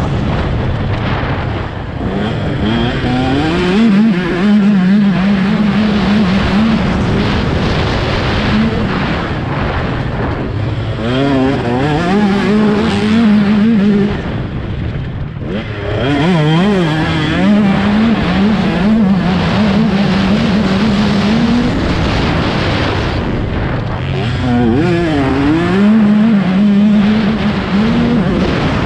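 Dirt bike engine heard from on board while riding, revving up and then holding a steady pitch, with the pitch dropping and climbing again about four times as the throttle is rolled off and back on.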